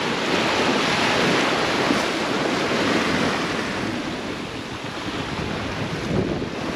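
Sea water rushing along the hull of a sailing yacht under way at about five and a half knots, with wind on the microphone: a steady wash that swells a little about a second in and eases somewhat midway.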